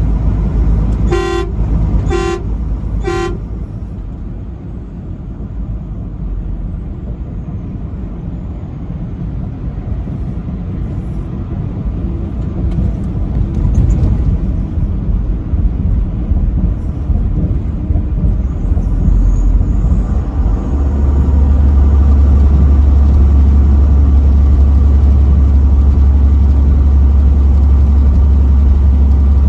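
Truck horn sounded in three short blasts about a second apart, followed by the steady low drone of a moving truck's engine and road noise, which gets louder and heavier about two-thirds of the way through.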